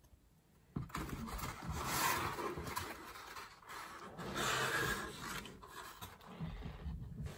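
Cardboard box, pulp packing and plastic wrap rustling and scraping as a packed unit is worked out of its box by hand, starting about a second in, in uneven swells.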